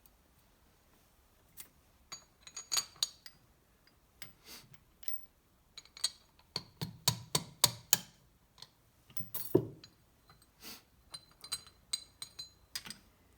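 Piston pins and other small metal engine parts clinking and tapping as they are handled and set down on a workbench. Scattered clusters of sharp clicks, some with a short metallic ring.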